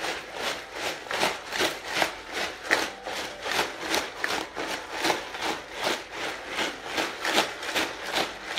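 Ice rattling and grinding in a plastic jar with a red lid as it is shaken hard by hand in a quick, even rhythm, the stage of shaking ice and salt around the mix to freeze shaken ice cream.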